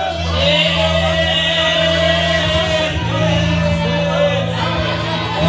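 Church worship singing: voices holding long sung notes over a steady low instrumental accompaniment.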